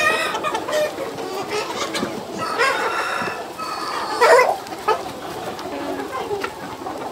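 A large flock of chickens clucking and calling over one another, with a few louder, longer calls standing out near the start, around the middle and just after.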